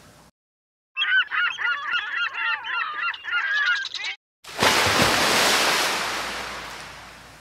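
A flock of birds calling at once, many overlapping squawking calls for about three seconds. After a short gap comes a burst of surf that fades away.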